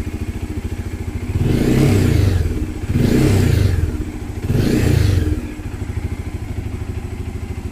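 Bajaj Dominar 400's single-cylinder engine idling and blipped three times in quick succession, then settling back to idle, with the vibration buzz the owner is demonstrating. He suspects a rattling headlight casing as one cause of the noise.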